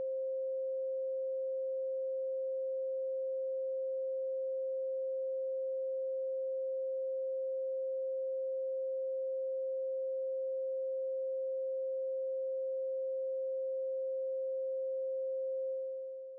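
A single steady electronic pure tone at a mid pitch that fades out near the end.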